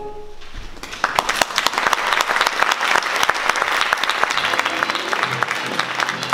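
Audience applauding, breaking out about a second in as a sung passage fades.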